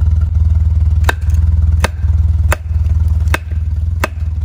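An axe chopping a chaga conk off a birch trunk: five sharp strikes, roughly one every three-quarters of a second, over a loud steady low rumble.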